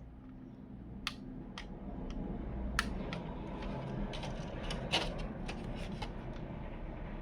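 Hands taking apart a flat-screen TV: scattered sharp clicks and light scraping of plastic parts and tools, over a steady rustle of handling that builds up about a second in.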